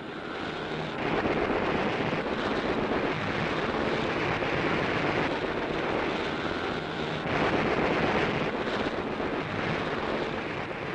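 Old newsreel sound-effects track of warplane engines: a dense rushing drone without a clear pitch. It changes abruptly in character and level every second or two.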